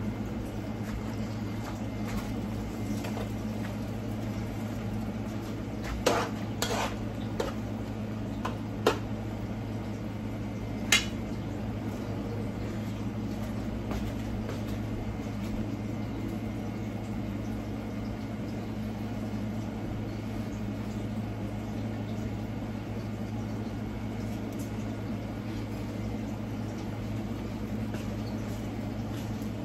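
A few sharp clinks of metal cookware, spread over a few seconds about a third of the way in, over a steady low kitchen hum.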